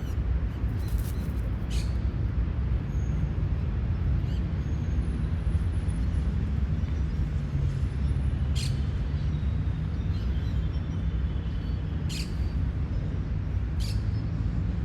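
City park ambience: a steady low rumble underneath, with short, sharp bird calls now and then, the clearest about one, two, eight and a half, twelve and fourteen seconds in, and a few faint thin whistles.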